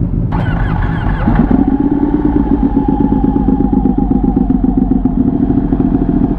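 Sport motorcycle engine running, picking up and rising in revs about a second in, then holding a steady note.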